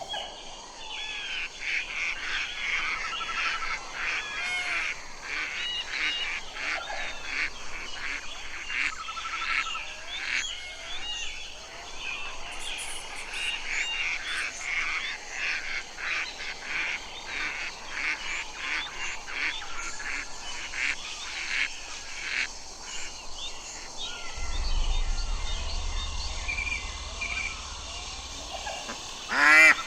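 A flock of ducks calling: many short, overlapping calls in a busy chorus that thins out over the last several seconds.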